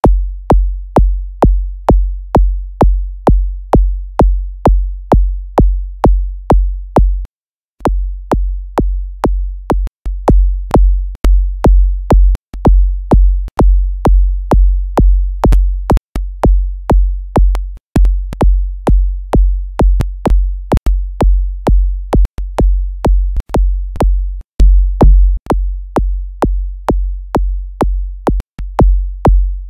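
FL Studio's Fruity Kick synthesizer playing a looping kick drum, about three deep bass hits a second, each with a sharp click at its start. It runs through a multiband compressor and cuts out briefly several times.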